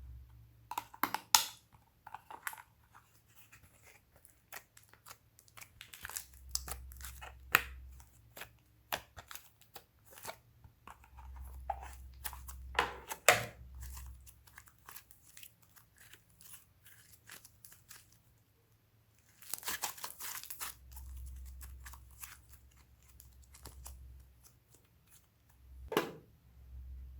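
Slime being worked by hand, with irregular sticky crackles, clicks and pops that come in denser clusters, and a low rumble every few seconds.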